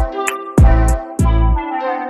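Background music with a beat: deep bass drum hits that drop in pitch, quick hi-hat clicks and held melody notes.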